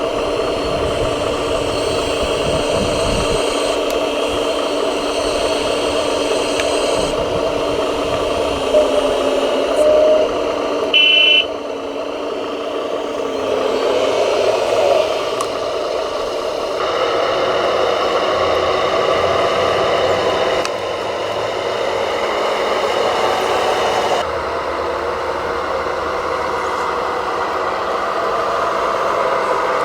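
Radio-controlled construction models at work: a steady whir of small electric motors and gearing with some clatter, changing abruptly several times, and a short high beep about 11 seconds in.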